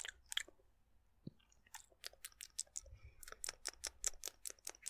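Close-up dry mouth sounds: sharp tongue and lip clicks. Two come near the start, then after a short pause a fast run of about four to five clicks a second.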